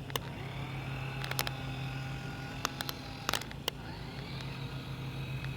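Small electric motor of a toy RC wakeboard boat whining, its pitch rising as it speeds up near the start and again about four seconds in, then holding steady, over a low steady hum. Sharp clicks come at irregular intervals throughout.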